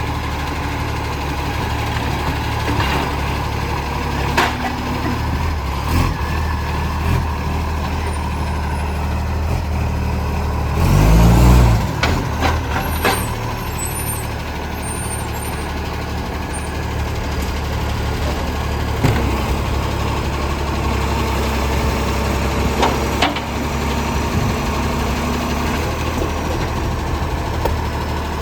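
ACCO garbage truck's diesel engine running with a loud roaring exhaust leak, a steady low drone throughout. About eleven seconds in there is a louder rush, and a few sharp knocks come through now and then.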